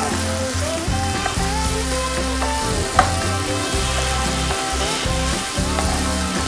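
Kondapindi leaves and moong dal sizzling in a nonstick kadai as a wooden spatula stirs and scrapes them, with one sharp knock of the spatula on the pan about three seconds in. Soft background music plays underneath.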